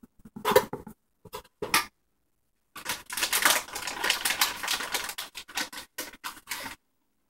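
Things being handled at a kitchen counter: a few short clicks and knocks, then about four seconds of dense, rapid crackling and rustling.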